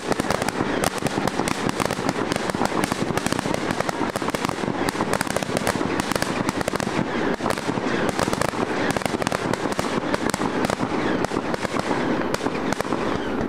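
Fireworks going off in a dense, continuous barrage of sharp pops and crackles, many a second.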